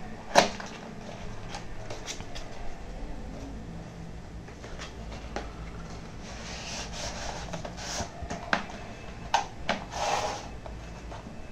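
Cardboard packaging being handled and opened: a sharp tap of the box on the table about half a second in, scattered light knocks, then the printed paper sleeve scraping and rustling as it slides off the white inner box in the second half.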